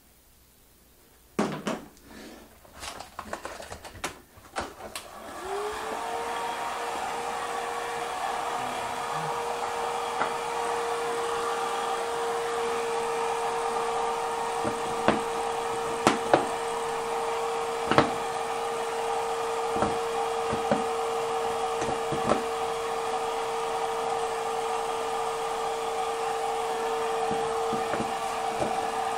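Handheld hair dryer picked up and switched on: a few knocks and clicks of handling, then about five seconds in its motor whines up to speed and runs with a steady hum and rush of air, with occasional taps and clicks over it.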